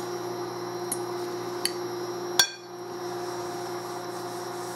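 Metal fork clinking against a glass mixing bowl while stirring flaked salmon and onion: a few light ticks, then one sharper clink about two and a half seconds in that rings briefly. A steady low hum runs underneath.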